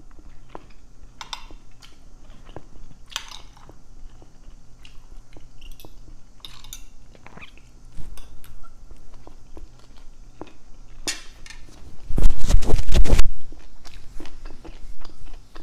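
Close-up chewing and wet mouth sounds of someone eating rice, sardines and green beans, with scattered small clicks and crunches. About twelve seconds in comes a loud burst of noise lasting a little over a second.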